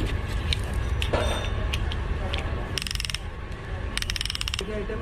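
Ratchet clicking in two quick runs, with a few scattered small metal clicks before them, consistent with a piston ring compressor being tightened around a piston before it goes into the cylinder. A steady low hum runs underneath.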